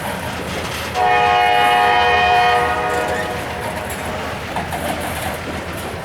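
Diesel locomotive air horn sounding one chord blast of about two seconds, starting sharply about a second in and fading away. Behind it, the steady rumble and clatter of a freight train rolling on the rails.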